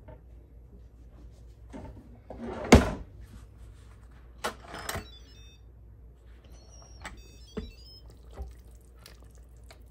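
Plastic clunks and knocks of an Instant Pot lid being twisted open and lifted off, the sharpest knock about three seconds in. Twice a short run of faint high electronic tones.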